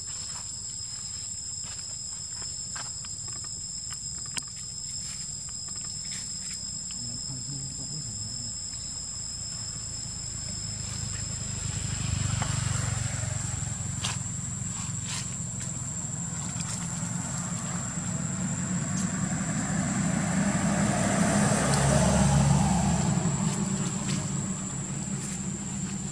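Insects trilling steadily in two high tones, the lower one stopping about halfway through. Under them is the low rumble of passing traffic, which swells about halfway through and again, louder, near the end.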